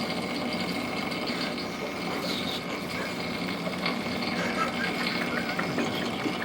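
A man snoring loudly in his sleep, a rough, steady rumble.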